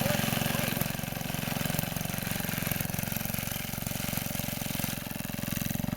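1952 Savage Arms lawn mower's engine running steadily with a rapid, even firing beat, easing slightly in the middle and picking up again near the end.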